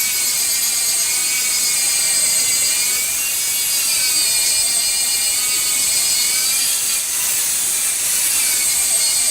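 Handheld electric power tool running under load: a steady motor whine over a loud grinding hiss, the pitch dipping and recovering several times as the tool is pressed into the work.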